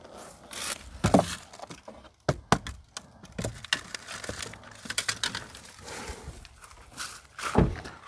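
Irregular knocks, clicks and soft rustling of someone moving about and handling gear close to the microphone, with a heavier thud about a second in and another near the end.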